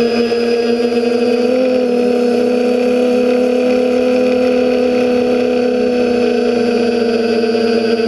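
TBS Discovery quadcopter's brushless motors and propellers buzzing steadily in flight, a steady hum with a slight rise in pitch about one and a half seconds in.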